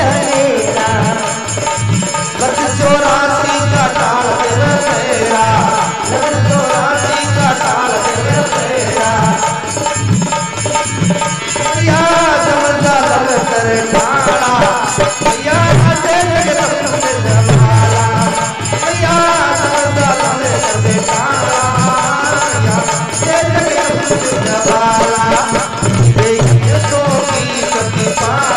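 Rajasthani devotional bhajan music: a male voice singing a melody over harmonium, with a steady dholak drum beat and jingling hand clappers.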